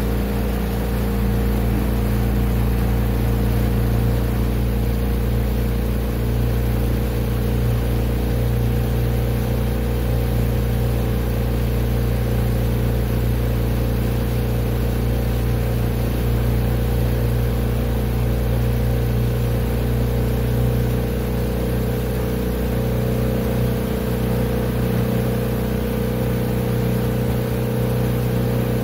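Engine of a small motorboat running steadily at an even pitch, heard from on board.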